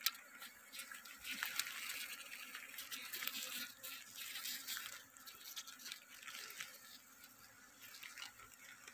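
A curved blade scraping and cutting through wax honeycomb of the Asian honeybee over a crinkling plastic bag, a faint crackly rustle that is busiest from about one to five seconds in.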